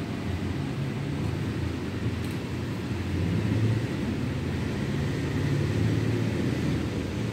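Steady low rumble of background noise, even throughout, with no distinct clicks or rhythm.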